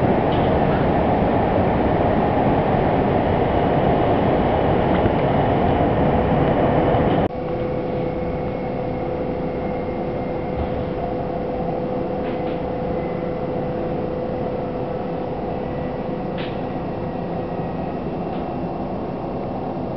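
Running noise of a regional train heard from inside a passenger car: a steady rumble. About seven seconds in it drops suddenly to a quieter stretch with a steady hum through the ride.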